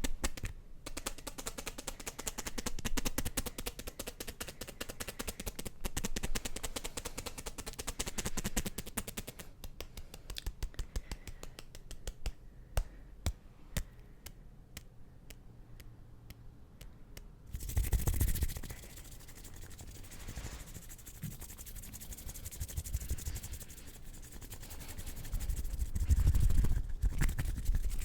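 Fast hand sounds made close to the microphone: rapid, dense clicking and tapping of fingers and nails for the first half, thinning to scattered clicks. Then rough rubbing and scratching of the hands, loudest at the start and near the end.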